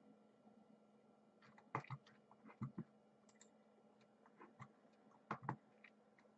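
Scattered clicks and taps of a computer mouse and keyboard, a few single clicks with a pair close together about five seconds in, over a faint steady hum.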